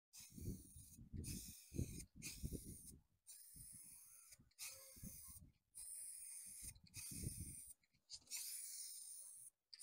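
Aerosol spray paint can hissing in a run of short sprays with brief breaks between them, laying a base coat onto a canvas. A low wind rumble on the microphone comes and goes, mostly in the first few seconds and again about seven seconds in.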